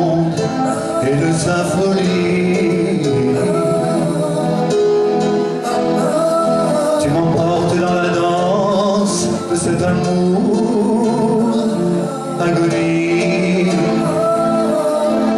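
A man singing live into a microphone over an instrumental backing, a pop song in concert.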